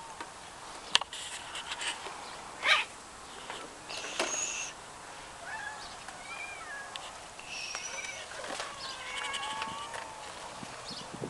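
Cats meowing now and then, with short bird chirps in between. Two sharp knocks about one and three seconds in are the loudest sounds.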